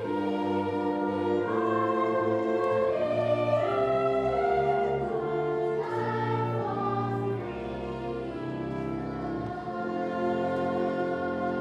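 Youth orchestra of strings and brass playing slow, sustained classical music, with a children's choir singing along.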